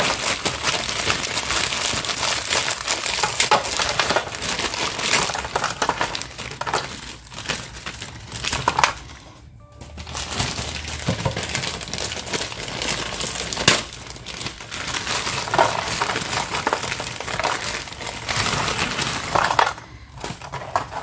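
Frozen butternut squash cubes tipped from a plastic bag into a metal roasting tin. The bag crinkles and the hard frozen cubes clatter and clink onto the tin, with a short pause about halfway through.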